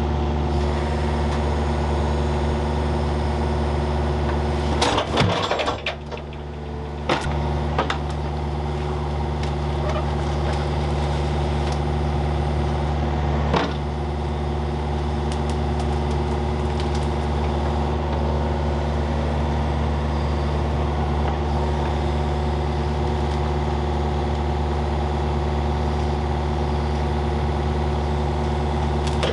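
A machine engine running steadily at constant speed, with a few sharp metallic knocks about five and seven seconds in and once more near the middle.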